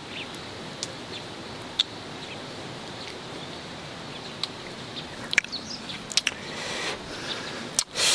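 Forest ambience: a faint steady hiss with short, scattered bird chirps and a few sharp clicks, the loudest click near the end.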